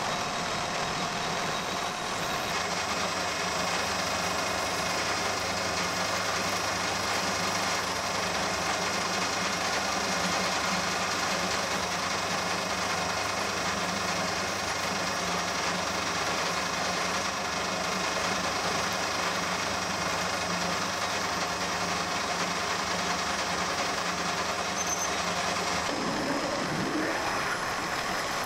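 Metal lathe running steadily while a twist drill in the tailstock bores into the spinning workpiece: a continuous machine hum with several held tones, whose note shifts slightly a couple of seconds in and again near the end.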